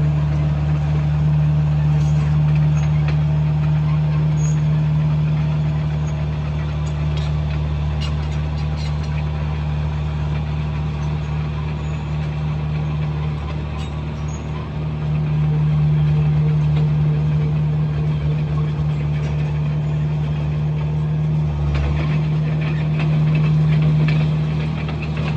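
Komatsu bulldozer's diesel engine running steadily while grading dirt. It eases off briefly about halfway through and picks up again.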